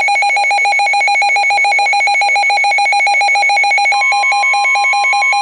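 Weather radio alert alarm: a loud electronic tone pulsing rapidly on and off. About four seconds in, a steady single tone just above 1 kHz joins it, the NOAA Weather Radio warning alarm tone (1050 Hz).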